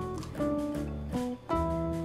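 Background instrumental music of plucked guitar notes, a new note or chord every few tenths of a second.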